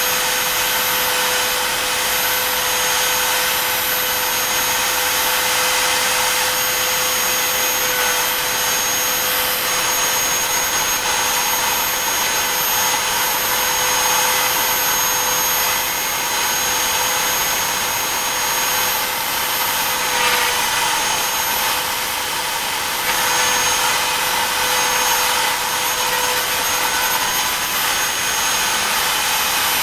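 Router spindle of a BobsCNC E3 desktop CNC running at speed while its V-bit carves stars into wood: a steady high whine over cutting noise, dipping slightly a few times as the load on the bit changes.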